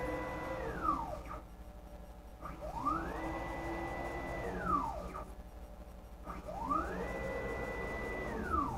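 CNC router's axis motors and belt drive moving the dial-gauge carriage in three repeated moves. Each move is a whine that rises in pitch, holds steady for a second or so, then falls away as the axis slows and stops. A quieter pause of about a second and a half separates the moves. The belts are noisy.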